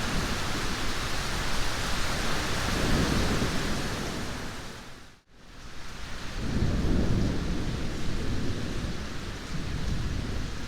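Heavy rain hissing steadily, with thunder rolling low underneath in slow swells. About halfway through the sound fades down almost to nothing for a moment and then swells back up.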